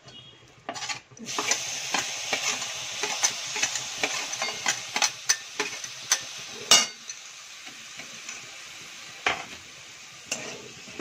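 Chopped tomatoes hitting hot oil in a kadai of fried potatoes start to sizzle about a second in. A steel spatula scrapes and knocks against the pan as they are stirred, and the sizzle eases off in the second half.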